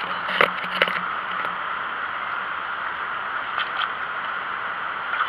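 Steady rushing of a fast-flowing river current, with a few sharp knocks from the camera being handled in the first second.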